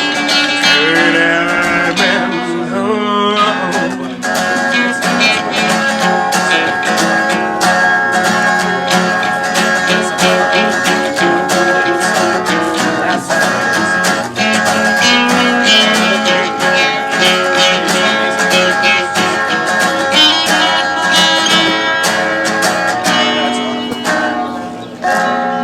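Live acoustic guitar strumming through the instrumental close of a song, with a held, wavering sung note in the first few seconds; the music drops away near the end.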